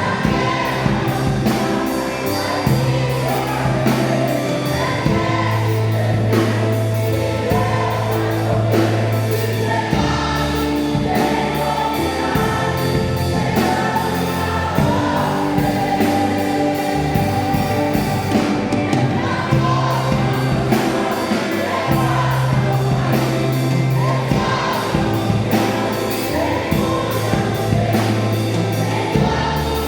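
Choir singing gospel music over a band with a steady beat and a bass line that moves between held notes every few seconds.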